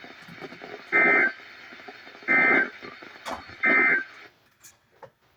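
Emergency Alert System end-of-message code: three short, shrill digital data bursts (SAME 'NNNN'), about a second and a half apart, over a steady broadcast hiss that cuts off after the third burst. It is the signal that the weather warning message has ended.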